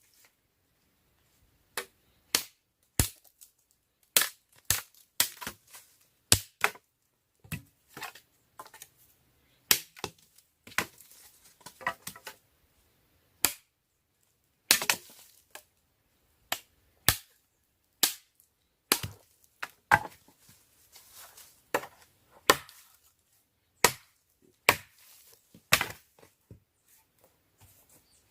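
Wood being chopped with a blade: a long run of sharp, irregular chopping blows, roughly one a second with a few short pauses.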